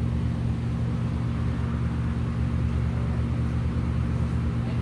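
Steady low mechanical drone with an even hum, unchanging throughout, from a machine running in the background.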